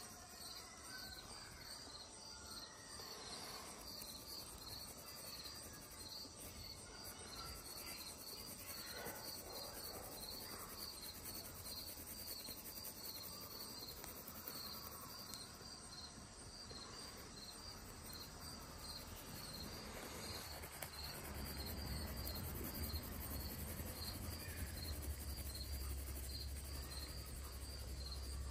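Graphite pencil scratching lightly on paper as it shades, under a steady high chirp repeating about four times a second. A low rumble joins about three quarters of the way in.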